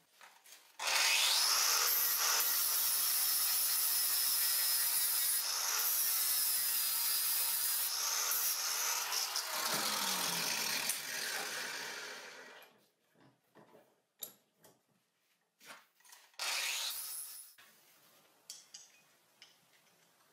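Angle grinder running against the welded steel washer in the vise, cleaning back the weld for about ten seconds, then spinning down with a falling whine. A second short burst of the grinder follows, with a few light metal knocks.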